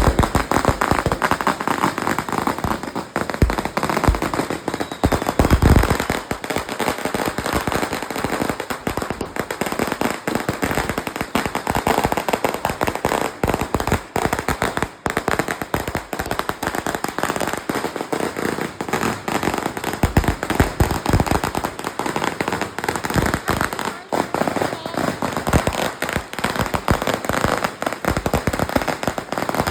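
Strings of firecrackers going off in a dense, continuous crackle of loud bangs with no letup.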